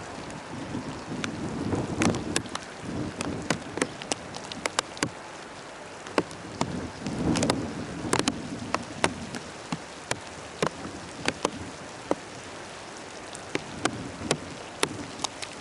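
Heavy rain falling during a thunderstorm, with many sharp, irregular drop ticks close by over a steady hiss. Low rumbles swell up about two seconds in and again about seven seconds in.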